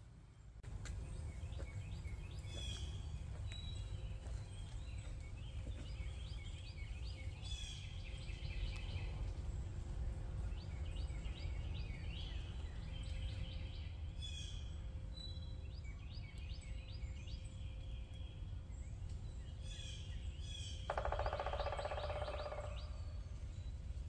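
Songbirds singing outdoors, short chirping phrases repeating throughout over a steady low outdoor rumble. Near the end a louder, lower, buzzy call lasts just under two seconds.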